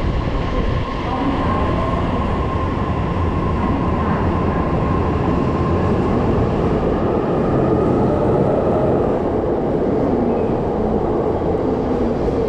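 JR East E259 series Narita Express electric train pulling out along the platform, with the steady rumble of its wheels on the rails and a faint whine from its motors that creeps up in pitch as it gathers speed.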